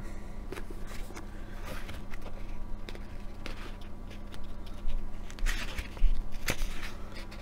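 A book being handled and its pages turned: soft papery rustles and small clicks, with a brief rustle about five seconds in and a sharp tap a little later.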